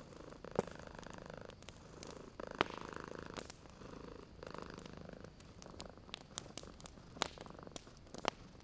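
Domestic cat purring in slow, even in-and-out cycles, with a wood fire crackling throughout. Sharp pops from the burning wood stand out, about five of them.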